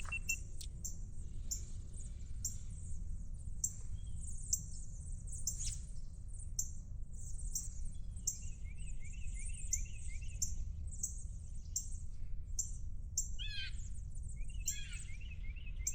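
Birds calling: a short high note repeated about twice a second throughout, with a run of trilled notes near the middle and downward-sweeping calls from another bird near the end, over a low steady rumble.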